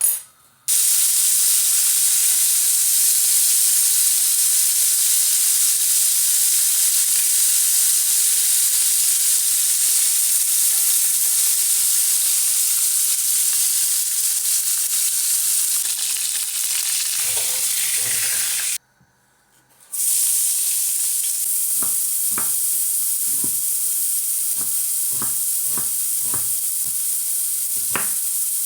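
Food frying in a hot pan, sizzling steadily. It breaks off for about a second partway through, then the sizzling resumes with a run of short knocks and scrapes as the food is stirred.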